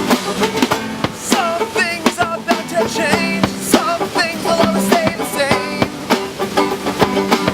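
Acoustic band playing a song: strummed acoustic guitar and banjo over a steady drum beat, with a wavering melody line above them from about one to four seconds in.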